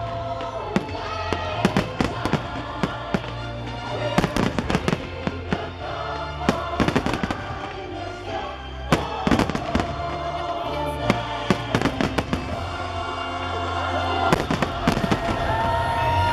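Fireworks bursting overhead in quick volleys of sharp bangs over the show's accompanying music.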